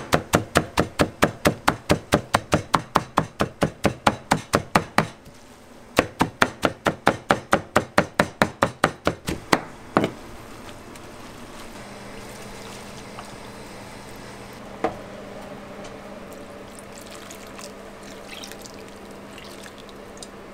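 Kitchen knife chopping soaked wakame seaweed finely on a plastic cutting board: a fast, even chopping at about four to five strokes a second, pausing briefly about five seconds in and stopping about ten seconds in. After that only a steady kitchen background with a low hum remains.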